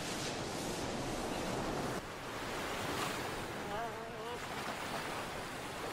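Ocean surf washing steadily onto a beach, with a short wavering call from a black-backed jackal about four seconds in.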